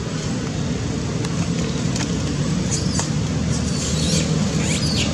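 Infant long-tailed macaque giving short, high-pitched squeaks, once about two and a half seconds in and again as a run near the end, over a steady low rumble.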